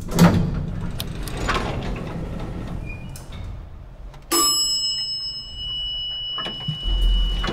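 A single elevator chime dings about four seconds in, a clear bell tone that rings on for a few seconds. Before it, a low rumble with a few soft clicks.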